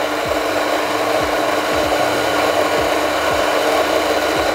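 DIP DKS-65 electronic coffee grinder running, its 650-watt motor driving 64 mm flat burrs through espresso beans in a steady whir. It is dispensing a timed dose of about 7 seconds and stops right at the end as the timer runs out.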